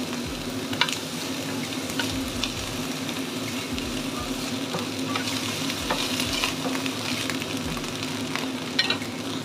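Pre-boiled broccoli florets and onion sizzling as they are stir-fried in a nonstick frying pan, turned with a wooden spatula that scrapes and taps the pan every second or two.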